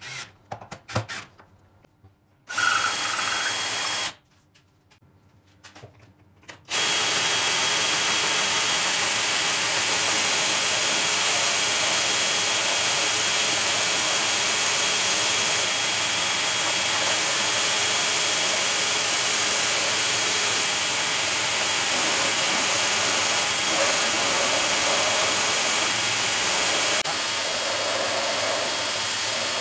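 DeWalt cordless drill driving screws into the wooden frame in a few short bursts, followed by a brief run. From about a quarter of the way in, the drill, clamped in as the motor of a homemade wooden belt sander, runs steadily with a high whine, turning the sanding belt while a block of pine is sanded on it.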